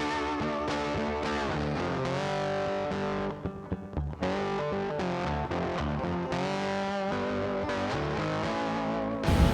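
Background music led by a distorted electric guitar, with notes sliding up and down between held chords. A short loud rush of noise cuts across it near the end.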